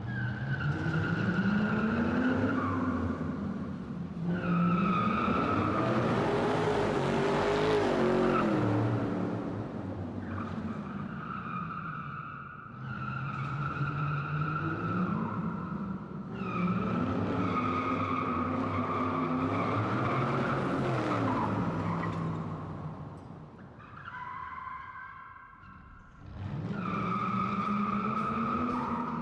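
Added car sound effects: an engine revving up and down with tires squealing, in a string of passes lasting several seconds each, with brief dips between them.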